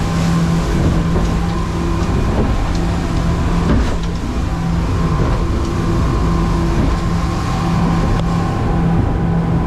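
A boat's engine running steadily under way, a constant hum over an even rush of wind and water.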